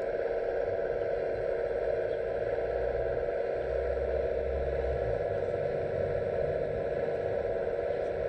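Electric hydraulic pump of a radio-controlled model excavator running steadily with a constant hum, a deeper rumble joining in for a second or two in the middle.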